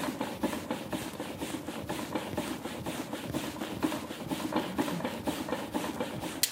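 Silver-plated copper daguerreotype plate being burnished face down on a velveteen-covered board: quick back-and-forth rubbing strokes in an even rhythm, polishing the plate before it is sensitized.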